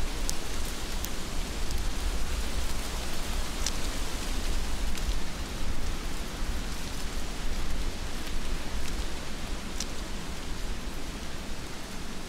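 Heavy rain falling steadily, an even hiss over a low rumble, with a few sharp ticks of drops striking close by.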